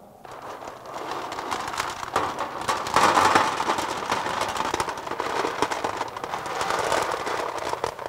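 Coarse gravel, the oversize fraction retained on a 19 mm sieve, poured from a metal pan into a metal tray on a balance: a continuous clattering rattle of stones on metal, loudest about three seconds in.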